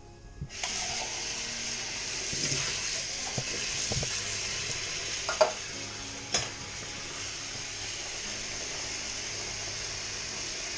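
Kitchen tap running: water pours onto black beans in a colander in a stainless-steel sink, a steady hiss that starts when the tap is turned on about half a second in. Two sharp knocks come around the middle.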